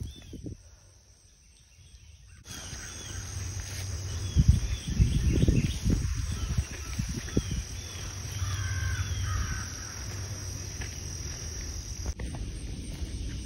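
Birds calling repeatedly in short arching calls over a steady high insect drone, with low rumbling on the microphone. The drone starts and stops abruptly.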